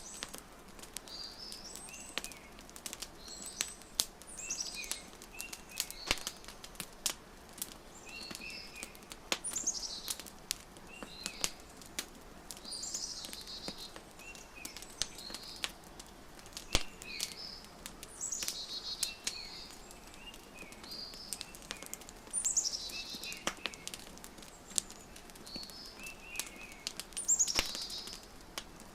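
Wood fire crackling with frequent sharp pops, mixed with small birds chirping in short repeated phrases every second or two.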